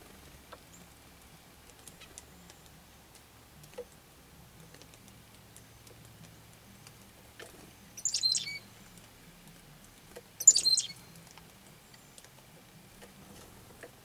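Black-capped chickadee calling twice, two short, loud, high-pitched calls about two and a half seconds apart, with faint scattered ticks between.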